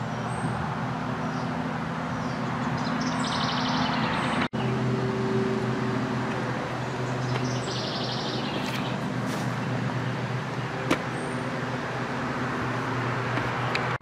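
Massey Ferguson 2607 tractor's diesel engine idling steadily with an even low hum.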